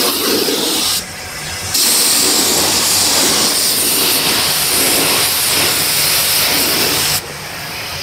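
Gravity-feed automotive spray gun spraying a coat of white paint onto a car door: a steady hiss of compressed air and atomised paint. The hiss drops briefly about a second in, then resumes, and drops again near the end as the trigger is let off.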